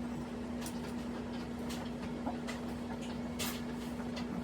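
Faint scattered clicks and light rattles of a tower CPU cooler being handled and set down onto the processor, over a steady low hum.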